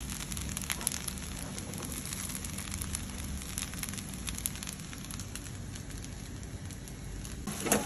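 Rice frying in oil in a pan, sizzling steadily with many small crackles and pops.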